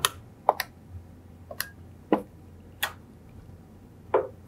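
Plastic keypad buttons of a Yealink T53W desk phone being pressed to dial a number: a series of short, sharp clicks at uneven intervals.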